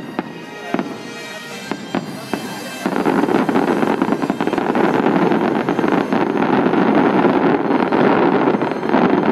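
Aerial fireworks: a few separate bangs over the first seconds, then, about three seconds in, a loud, dense crackling sets in as a volley of glittering crackle stars bursts overhead.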